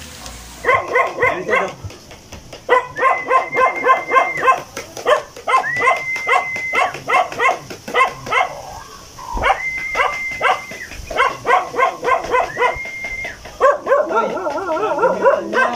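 A dog barking rapidly and over and over, with drawn-out high whines held about a second at a time and a wavering whimper near the end.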